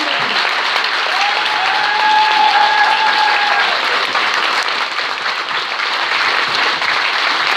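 Audience applauding steadily. One long held call rises above the clapping about a second in and lasts about three seconds.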